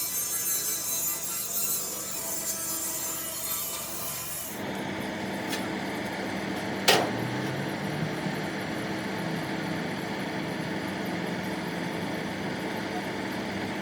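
Workshop tool noise: steady rubbing and rasping, like sawing or sanding, that changes abruptly about four and a half seconds in, with one sharp knock about seven seconds in.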